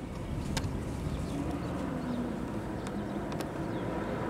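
Steady low outdoor background rumble with a faint wavering hum and a few sharp clicks.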